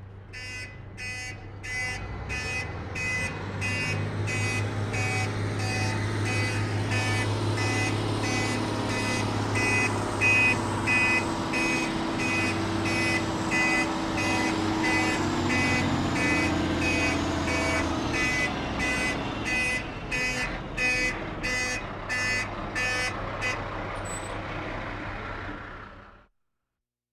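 Heavy truck's diesel engine running while its reversing alarm beeps steadily about twice a second; the beeping stops near the end and the engine cuts off shortly after.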